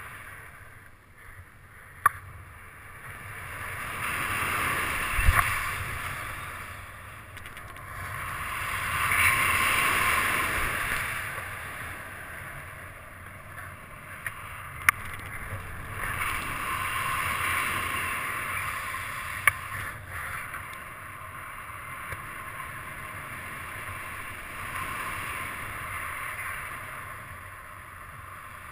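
Wind rushing over the microphone of a paraglider pilot's camera in flight, swelling and easing in slow waves, with a few sharp knocks.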